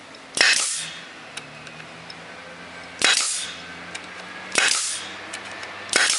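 Pneumatic stapler driving staples into 1-inch pressure-treated wood: four sharp shots, each with a short hiss after it, the last three about a second and a half apart.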